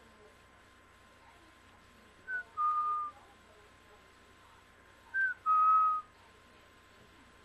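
A person whistling twice to call a dog, each call a short higher note that drops into a longer, steady lower note; the second call is a little louder.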